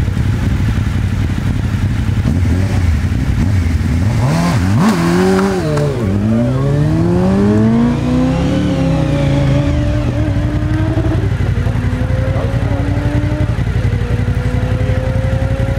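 Suzuki Hayabusa inline-four motorcycle idling at the start line, then launched hard about four seconds in. Its note rises, drops back at each gearshift and climbs again, then fades as the bike speeds away down the road.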